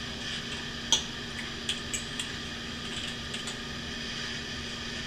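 Metal fork clinking against a china plate a handful of times while food is cut and eaten, the sharpest click about a second in, over a steady background hum.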